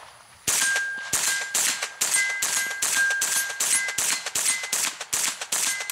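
Colt Stagecoach .22 LR semi-automatic rifle fired rapidly, about a dozen shots at two to three a second, with 8-inch steel gongs ringing at two different pitches after many of the hits.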